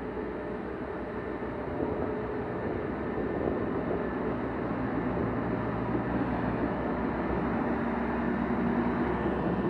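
Diesel engines of heavy earthmoving machinery running steadily, with a low engine hum that slowly gets louder.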